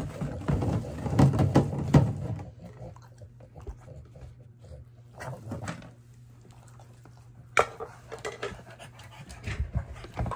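A plastic pet food storage bin being handled and a hand scooping through the dry dog food inside, with dense clattering over the first couple of seconds and a sharp knock about seven and a half seconds in. A French bulldog sniffs and breathes close by.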